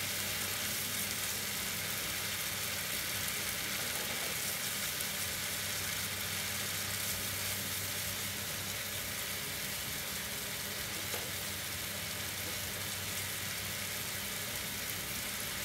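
Ground chili spice paste sizzling steadily in oil in a wok while being stirred with a spatula, as it is fried until cooked through before the water goes in.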